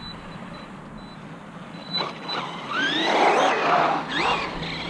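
Arrma Typhon 3S RC buggy running on pavement from about two seconds in, its brushless electric motor whining up and down in pitch as the throttle is worked, over a rush of tyre noise.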